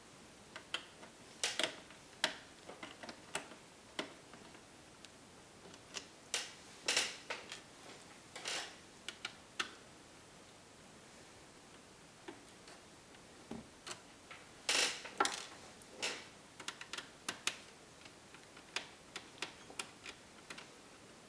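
Irregular small clicks and ticks with light scrapes as a small screwdriver works the tiny screws out of a Toshiba Satellite C655D laptop's plastic screen bezel. The loudest cluster of clicks comes about two-thirds of the way through.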